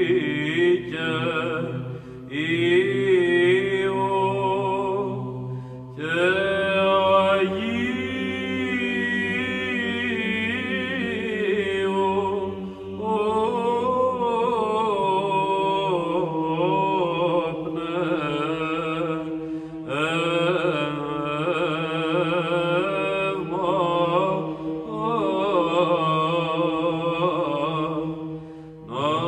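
Chanted vocal music: a sung melody over a held low drone, in long phrases with short breaks between them.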